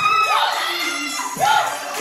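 Recorded music playing through a sound system, with high voices whooping and cheering over it in short rising-and-falling calls, about three in two seconds.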